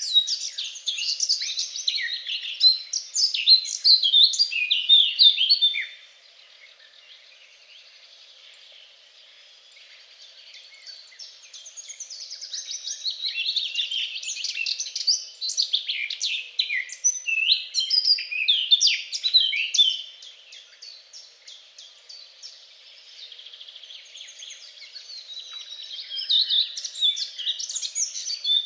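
Songbirds singing in a busy chorus of rapid chirps and trills, easing off twice into quieter spells.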